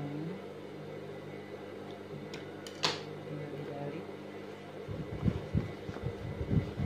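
Steady low machine hum with a few sharp scissor snips and clicks about three seconds in, then close-up rustling and rubbing of fabric as a sewn cloth pouch is turned right side out.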